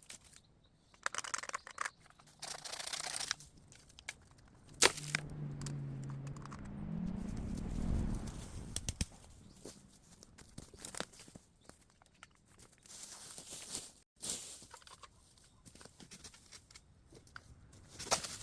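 Bamboo debris being handled: dry leaves and broken culms rustling and crackling, with scattered sharp snaps and cracks. A low hum rises in pitch for a few seconds midway.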